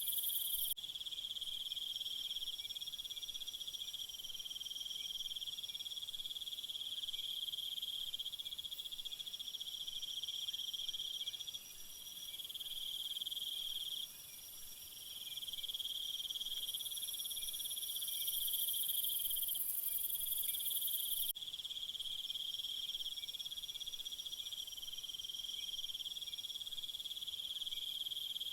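Crickets trilling in a steady, continuous chorus. A higher, hissing insect layer cuts in and out abruptly, dropping away about a second in and again about 21 seconds in.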